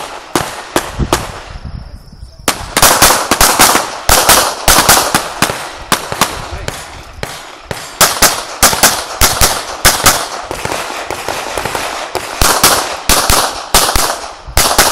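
Pistol fired in rapid strings of several shots a second, with short breaks between strings.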